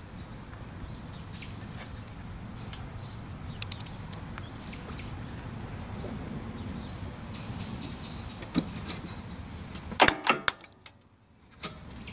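Steady low background rumble with a few scattered light clicks. About ten seconds in comes a quick cluster of loud sharp clicks and knocks, the loudest thing here, followed by about a second in which the sound drops almost to silence before the rumble returns.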